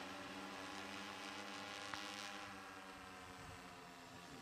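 Faint, steady engine drone whose pitch sags slightly after the middle, with one small tick about two seconds in.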